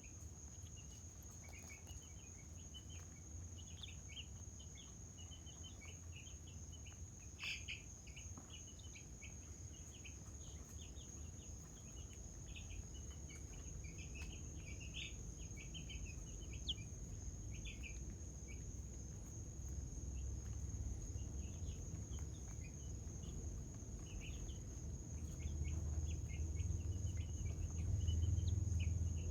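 Steady high-pitched insect trill with many short bird chirps over it, and a low rumble that grows louder near the end.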